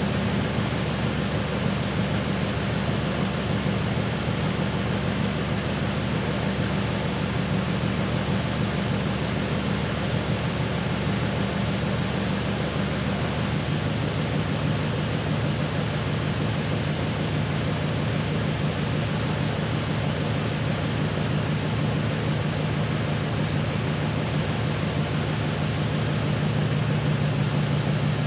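Truck engine idling steadily under an even hiss, its low hum dropping slightly in pitch about halfway through.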